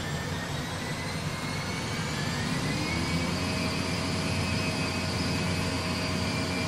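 Airbus A320 full flight simulator's jet engine sound at takeoff thrust during the takeoff roll: a steady rumble and hiss with faint whines rising in pitch, slowly getting louder.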